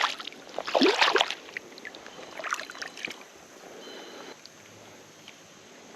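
Creek water splashing as a smallmouth bass is let back into the stream: a loud splash about a second in, then a few smaller splashes.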